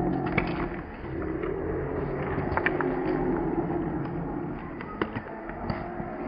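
A steady low motor hum that fades over the last couple of seconds, with short sharp sounds scattered over it from a flock of domestic geese walking and flapping their wings.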